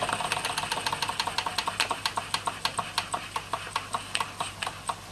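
Jensen 35 toy steam engine chuffing after being turned over, its exhaust beats quick at first and spacing out steadily as it slows. It is running down: the boiler does not yet have enough steam to keep it going.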